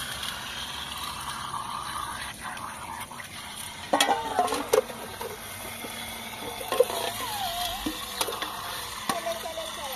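Water splashing and trickling as a metal tray is rinsed by hand in a water channel, with a few sharp metallic clinks of the tray and pot knocking together from about four seconds in.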